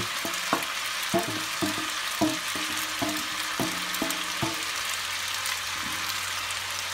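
Spaghetti, chicken and vegetables sizzling steadily in a hot wok, with a wooden spatula knocking against the steel bowl and pan about every half second as the vegetables are scraped in. The knocks stop about four and a half seconds in.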